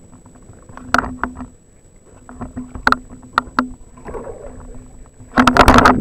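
Fishing reel being cranked in short spells during a fight with a fish: scattered clicks over a low hum from the reel. Just before the end comes a sudden run of loud, rapid clicking and rattling.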